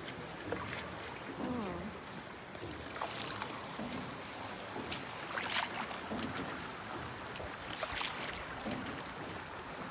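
Oars of a small rowboat pulling through the water in a slow rhythm, a splash about every two and a half seconds, over a steady wash of water.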